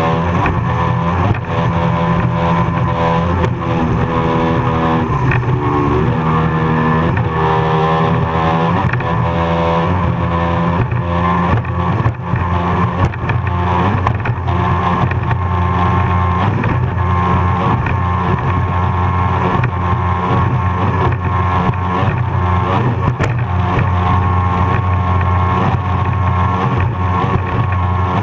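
Racing powerboat engine running hard, heard from on board at speed, its pitch rising and falling over the first ten seconds or so and then holding steadier. Steady wind and water rush run underneath.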